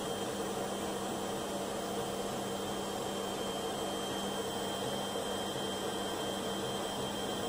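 Home-built 3D printer running a print: a steady hum and whir from its cooling fans and motors.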